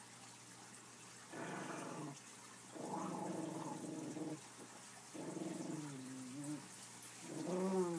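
Pug-type puppies play-growling, in four long growls, the last one the loudest.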